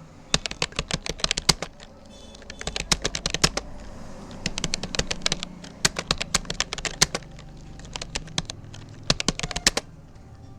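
Typing on a Rapoo computer keyboard: rapid key clicks in runs separated by short pauses, stopping near the end.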